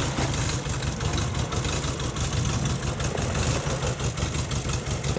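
Engine of an off-road 4x4 running steadily at low revs, a constant low rumble with no revving.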